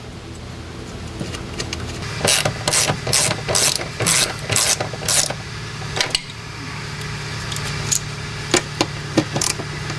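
Hand ratchet working in about seven quick strokes over some three seconds, then a few single clicks and knocks, over a steady low hum. It is tightening the fittings as a replacement fuel pump is reinstalled.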